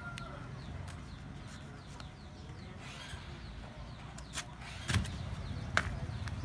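Outdoor market background: a steady low rumble with a few sharp knocks in the second half, the loudest shortly before the end.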